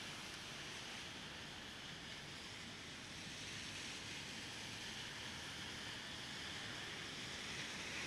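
Steady rain falling on a city street, an even hiss.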